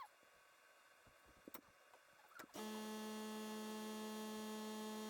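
A few faint clicks and taps, then about two and a half seconds in an air compressor switches on and runs with a steady, even hum: a whisper-quiet compressor.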